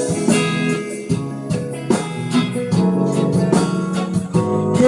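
Guitar accompaniment between sung lines: plucked and strummed chords, a new chord about every half second.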